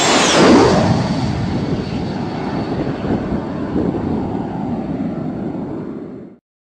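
Logo-intro sound effect: a whoosh about half a second in, then a steady noisy drone like a passing jet that slowly fades and cuts off abruptly near the end.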